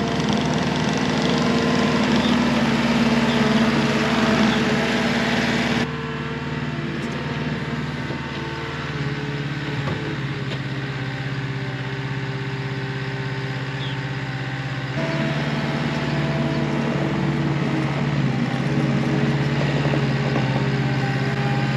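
JCB 270T compact track loader's diesel engine running steadily. Its sound drops abruptly about six seconds in and comes back up about fifteen seconds in.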